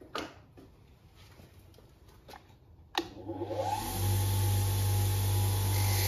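Bench grinder with a wire brush wheel switched on with a click about three seconds in. Its electric motor winds up to speed with a rising whine, then runs with a steady hum.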